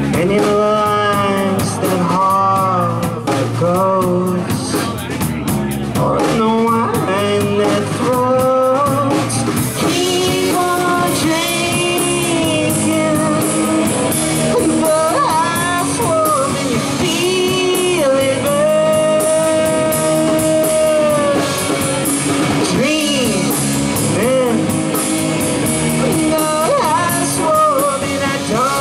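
Live rock band playing: electric guitars and drum kit, with a lead melody line that slides and bends in pitch over the full band.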